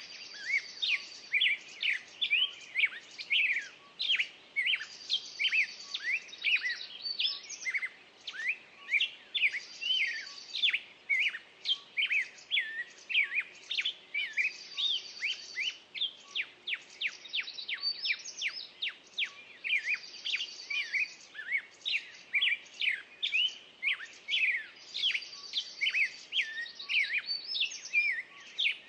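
A dense chorus of small songbirds, many short chirps and calls overlapping without pause, with a higher buzzy trill that comes back about every five seconds.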